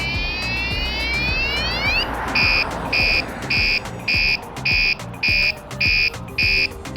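Wsdcam 113 dB bike alarm sounding its siren cycle: one rising electronic whoop of about two seconds, then eight sharp beeps about two a second.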